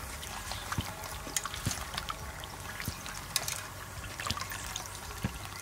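Water splashing and dripping in a stainless steel bowl as hands squeeze and rub soaked dried shiitake mushrooms, with irregular small splashes and clicks.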